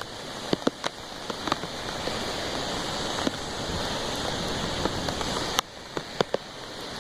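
Heavy hurricane rain falling steadily, with scattered sharp taps of drops striking close by.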